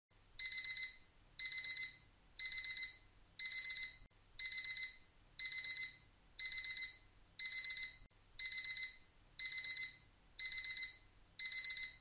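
Digital alarm-clock beeping: quick groups of four high beeps, repeating about once a second, signalling that the countdown timer has reached zero.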